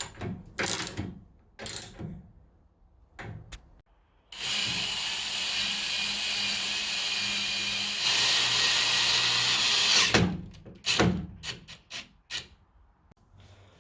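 A power drill runs steadily for about six seconds, getting louder about two-thirds of the way through, with handling clicks and knocks on the metal frame before and after it.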